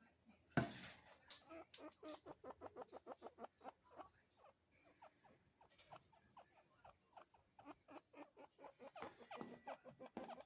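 Chinchillas calling to each other in quick runs of short chirps, fastest in the first few seconds, then sparser, then picking up again near the end. A single sharp knock comes just before the first chirps.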